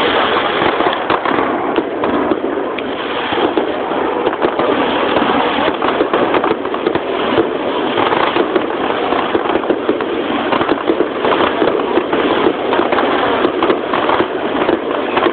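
Aerial fireworks barrage heard from close by the launch site: a dense, unbroken run of shell bursts and crackling, many sharp bangs a second with no pause.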